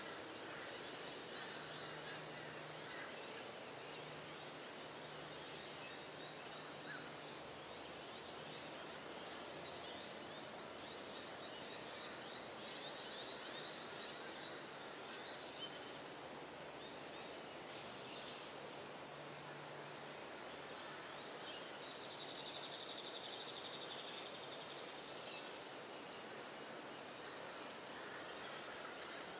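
Steady high-pitched drone of an insect chorus with outdoor background noise. A faint high trill comes about three quarters of the way through.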